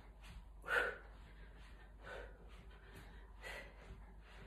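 A man breathing hard from exertion, with short forceful exhalations about every second and a half, the loudest about a second in.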